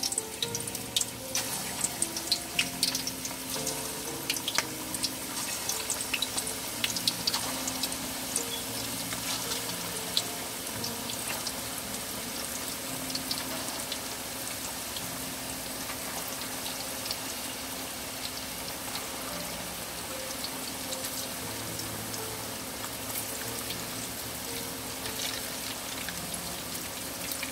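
Meatballs deep-frying in a pan of hot oil: a steady sizzle full of crackles and pops, the crackling busiest in the first dozen seconds.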